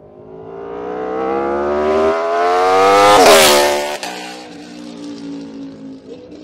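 Aprilia RSV4 1100 Factory's V4 engine through an SC Project GP-22 slip-on exhaust, in a high-revving flyby. It accelerates toward the listener with the pitch climbing, is loudest about three seconds in, then the pitch drops sharply as it passes and a lower, quieter engine note trails away.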